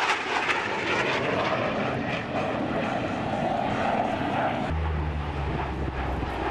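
Steady jet noise from a BAE Hawk 127 trainer's single turbofan as it flies away. About four and a half seconds in, it cuts abruptly to the low, steady hum of a C-130 Hercules's four turboprop engines and propellers passing overhead.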